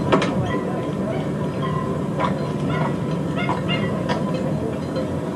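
Boat engine idling, a steady low rumble, with scattered knocks and clicks over it.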